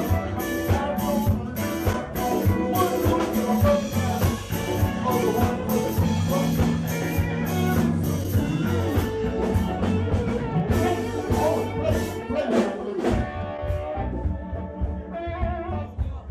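Live band playing: congas and a drum kit keep a steady beat under an electric bass. The beat thins out near the end.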